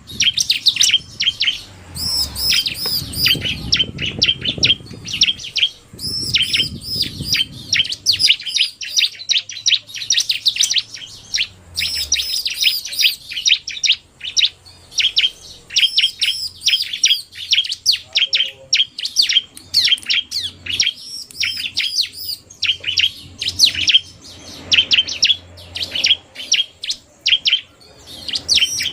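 Bar-winged prinias (ciblek) calling without pause: a male in full song with fast, sharp, high chirps from a female mixed in, a dense run of quick repeated notes.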